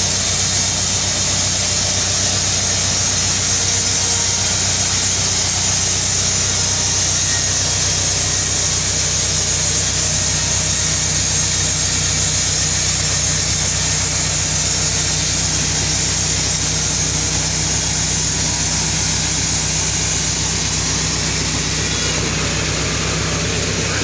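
Band sawmill running steadily, its blade cutting lengthwise through a large albasia log: a constant hum under a hiss of sawing.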